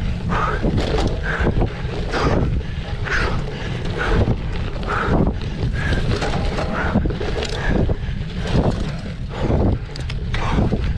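Wind buffeting the microphone of a bike-mounted or rider-worn camera during a cyclocross race, over a continuous low rumble, with short bursts repeating about once a second.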